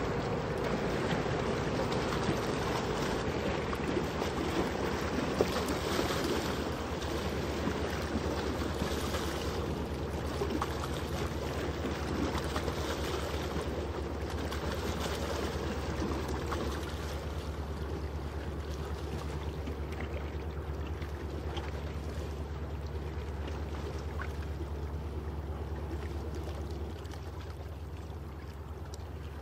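Geared container ship passing at canal speed: a low, steady engine drone under the rush of water along the hull and in its wake. It slowly fades as the ship moves away, dropping a little more near the end.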